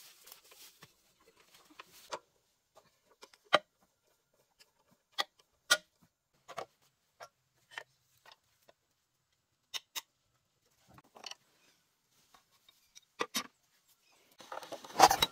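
Scattered metal clinks and taps of hand tools and parts being handled on a walk-behind rotary tiller's engine, with a louder burst of clatter near the end.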